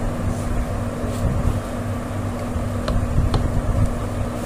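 A steady low hum with a rumble beneath it, and two faint clicks a little past the middle.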